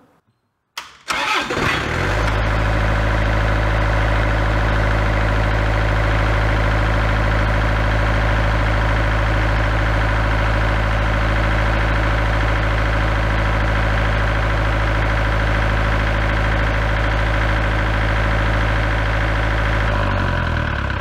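Large diesel generator cranked by its starter about a second in, catching and running at a steady governed speed with a deep, even hum. Near the end it winds down and stops, in keeping with this set's habit of shutting down on a control-panel error after a short run.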